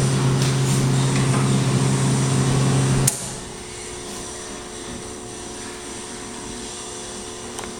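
Stick welder's transformer humming steadily at idle, then switched off with a click about three seconds in; only a faint steady background hum is left.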